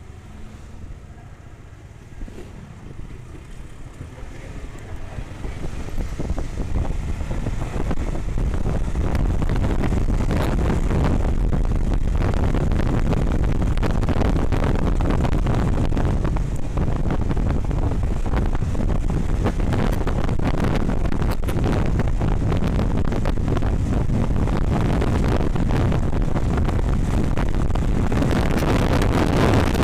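Wind rushing over an action camera's microphone on a Honda CBR150R motorcycle, with the bike's engine running underneath. Fairly quiet for the first few seconds, the rush builds over about four seconds as the bike picks up speed, then stays loud and steady.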